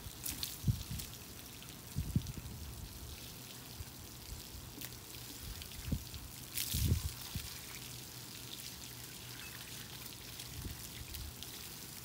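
Water spraying from a hose sprayer onto a dog's soapy coat and running off onto the table during a bath, a steady hiss with a few soft low thuds.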